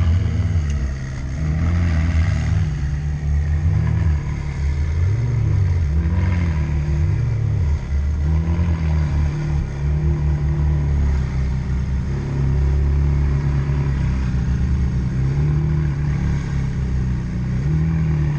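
McLaren 675LT's twin-turbo V8 idling, with several light blips of the throttle that briefly raise its pitch.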